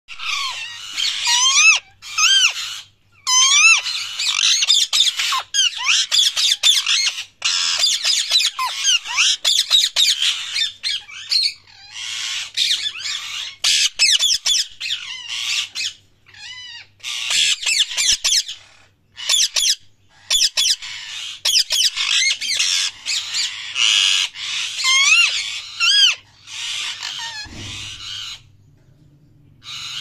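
Lutino Indian ringneck parakeet chirping and squawking loudly in rapid runs of short rising-and-falling calls, broken by brief pauses. The calls stop near the end, where there is a low bump.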